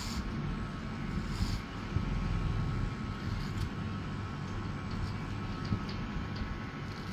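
Electric hair clipper running with a steady buzz as it cuts short hair at the side of the head, with a few brief higher rasps along the way.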